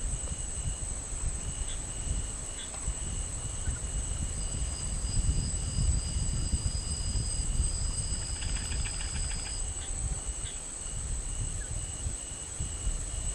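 Night insect chorus: a steady high-pitched trill, with a cricket chirping about three times a second, and a second trill joining a few seconds in and stopping near the end, over a low rumble.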